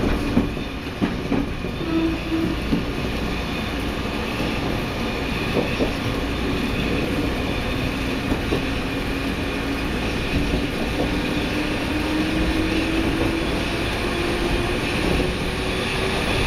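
Eizan Electric Railway electric railcar running, heard from inside the car. The wheels click sharply several times over the points in the first few seconds, then run on steadily, with a faint motor whine rising slowly in pitch near the end as the train picks up speed.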